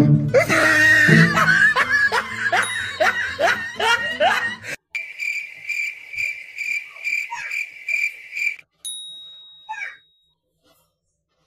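Laughter over music for about five seconds, then a steady high tone pulsing about three times a second for about three and a half seconds, followed by a brief whistle.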